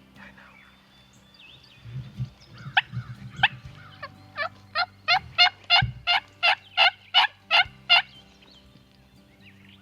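Wild turkey yelping: a run of about a dozen sharp, short notes that start about three seconds in, grow louder and settle into a steady two to three a second before stopping about eight seconds in.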